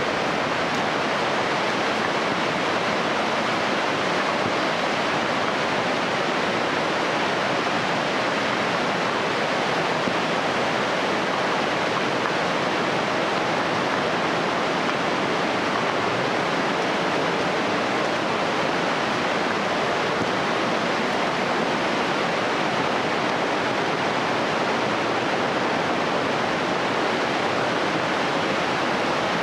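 Glacial meltwater rushing and splashing in a steady, unbroken stream.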